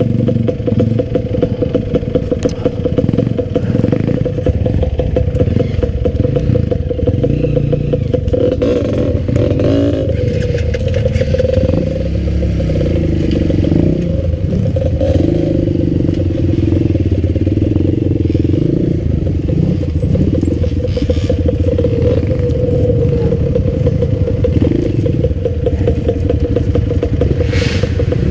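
Dirt bike engine running under way on a rough trail, its revs rising and falling with the throttle.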